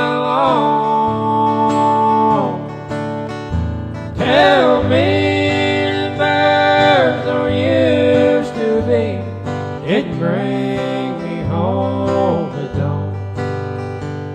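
A man singing long, drawn-out notes of a slow country song to his own strummed acoustic guitar.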